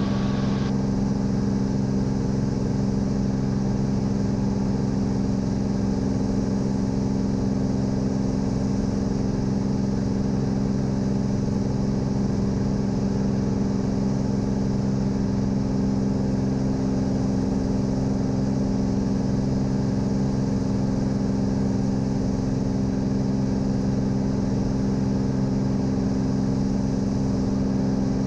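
Cirrus SR22's six-cylinder Continental piston engine and propeller droning steadily inside the cabin, at climb power, with an even, unchanging pitch.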